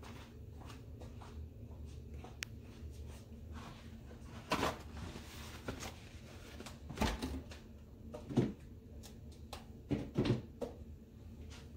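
A few short knocks and clunks, about four of them spread a couple of seconds apart, over a low steady hum.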